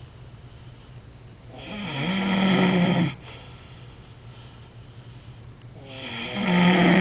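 Heavy snoring: two long snores about four seconds apart, one a second and a half in and one near the end. Each swells, settles into a steady buzz, then cuts off sharply.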